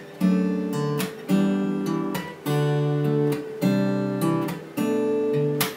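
Steel-string acoustic guitar strumming a sequence of chords from the G-major family. A new chord is struck about once a second, each ringing until the next.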